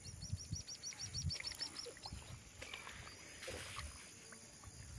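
A bird calling a fast run of identical high, arched notes, about six a second, which stops about two seconds in. Faint low thuds sound under it.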